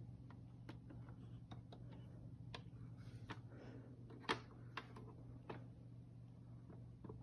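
Faint, irregular light clicks and taps over a low steady hum, with one sharper click a little past the middle.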